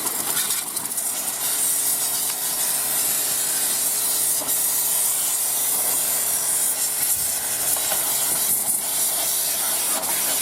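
High-pressure water jet from a pressure washer spraying a motorcycle frame: a steady hiss of spray, with the washer's motor humming faintly underneath.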